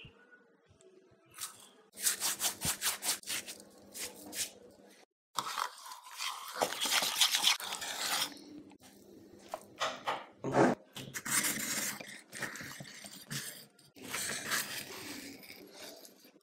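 A small wire whisk beating a thick, wet yogurt-and-spice marinade in a ceramic bowl: quick repeated strokes and wet scraping against the bowl. Near the end, a knife slicing into raw chicken on a stone board.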